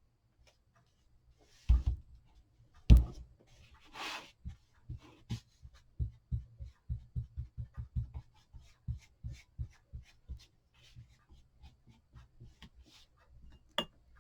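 Craft supplies being handled on a tabletop: two sharp knocks, a short papery rustle, then a long run of quick soft taps and clicks that thins out to scattered clicks.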